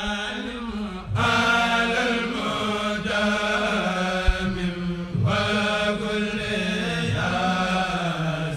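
Chanted vocal music: a voice holding long, slowly bending phrases, with a new phrase starting about a second in and again about five seconds in.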